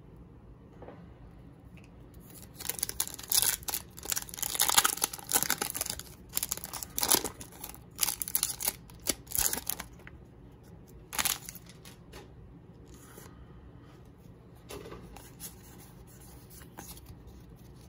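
Pokémon booster pack's foil wrapper being torn open by hand: a run of crinkling, ripping bursts lasting several seconds, followed by one more rip and a few lighter rustles as the cards are handled.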